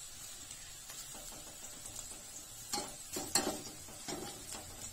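Pakoras sizzling as they deep-fry in oil in a steel pan. From about three seconds in, a perforated metal skimmer scrapes and knocks against the pan several times, turning the fritters.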